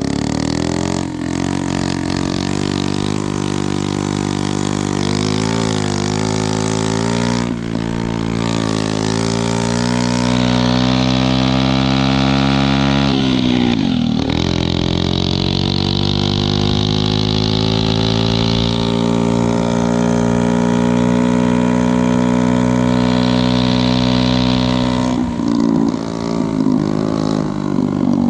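Honda QA50 mini bike's small 49 cc four-stroke single-cylinder engine running under way, its pitch climbing as it accelerates. About fourteen seconds in it drops sharply and climbs again, then holds a steady high speed before rising and falling with the throttle near the end.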